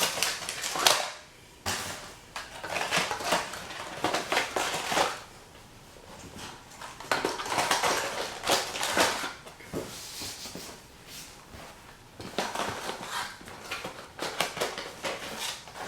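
Fishing tackle and packaging being handled and packed back into a box: rustling and light clattering knocks in uneven bursts.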